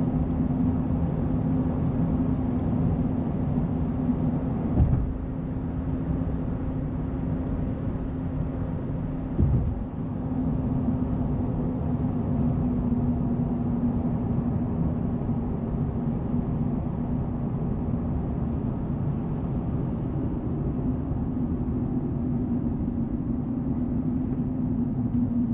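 Cab noise of a pickup cruising on the highway: the 3.0 L Duramax inline-six diesel running steadily under road and tyre noise, with a steady low drone, while it is in an active exhaust-filter (DPF) regeneration. Two short thumps stand out in the first ten seconds.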